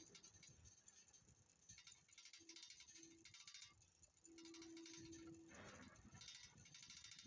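Near silence: a faint hiss with light crackle, and a short steady tone lasting about a second, a little past the middle.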